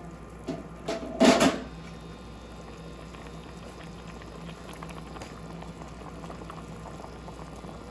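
Chicken adobo in its vinegar and soy sauce bubbling steadily at a simmer in the pan. About a second in there is a short, loud clatter with a brief ring.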